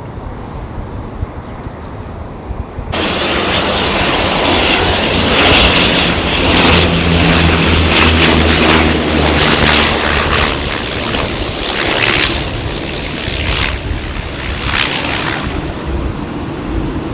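Steady wind noise at first. About three seconds in, the loud, dense noise of an airliner's engines starts suddenly and carries on to the end, with a low steady hum beneath it.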